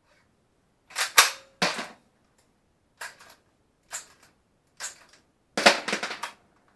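Beretta 1301 semi-automatic shotgun being reloaded by hand with the bolt open: a series of sharp metallic clacks as the action is worked and four shells are pushed in. The loudest clack comes about a second in, and a quick run of clacks comes near the end.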